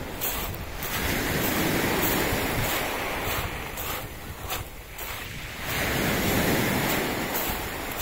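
Sea waves breaking on a pebble beach, swelling twice, about a second in and again near six seconds, as each wave washes up over the stones.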